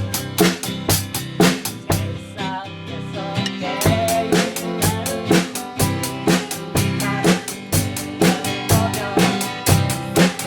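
Music with a drum kit keeping a steady beat, about two strokes a second, under a wavering melody line.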